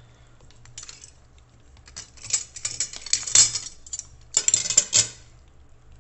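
A spatula stirring a pot of chunky stew, scraping and clinking against the pot in two rapid bouts: one about two seconds in, the louder one around three and a half seconds, and another just after four seconds.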